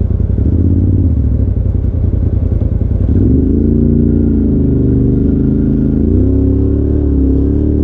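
Side-by-side UTV engine running as it drives slowly along a gravel road, its pitch climbing as it speeds up about three seconds in and again near six seconds.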